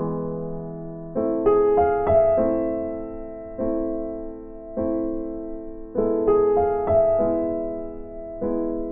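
Background music: slow, gentle solo piano, soft chords and notes struck about once a second and left to ring and fade.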